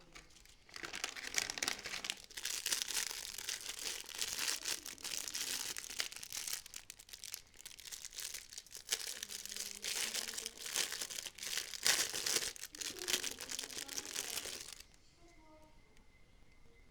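Packaging crinkling as it is handled and unwrapped: a dense, continuous crackle that starts about a second in and stops suddenly near the end.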